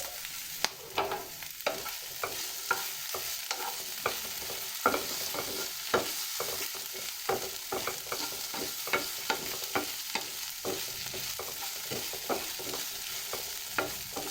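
A spatula stirring and scraping vegetables in a pan, giving irregular clicks and scrapes about once or twice a second over a steady sizzling hiss.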